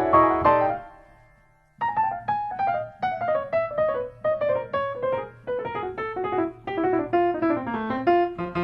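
Background piano music: a chord dies away and a gap of about a second follows, then a run of single notes descending in pitch, played at a steady pace.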